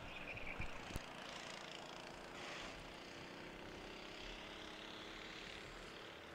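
Faint, distant engine hum from a vehicle, with a couple of light knocks in the first second.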